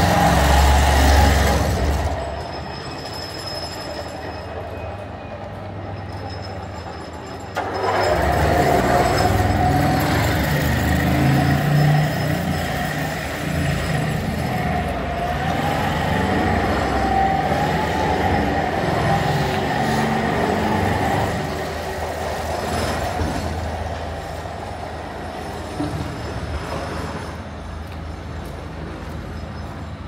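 Train wheels squealing on the rails as a train passes, a wavering high squeal over a rumble. The squeal fades about two seconds in, then starts again suddenly about seven seconds later and dies away about two-thirds of the way through.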